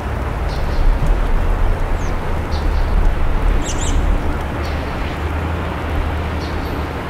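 Small birds chirping short high calls about once a second, one louder double chirp a little past the middle, over a steady low rumble and hiss of outdoor ambience.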